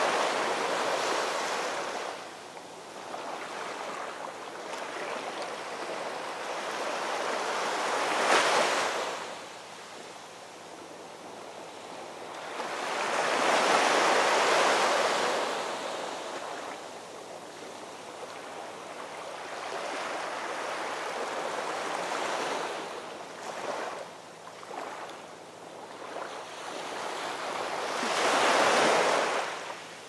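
Heavy storm surf crashing and washing, with a steady rush between big breakers. Loud surges come about a second in, around eight and a half seconds, around fourteen seconds and again near the end.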